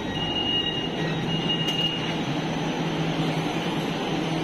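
Metro train's door warning sounding as two long high beeps over the rumble of the train, then a steady low hum from the train begins about a second in.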